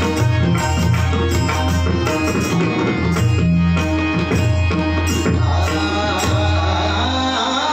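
Tabla playing a steady bhajan rhythm over low sustained notes, in an instrumental passage; a wavering melody line comes in about five and a half seconds in.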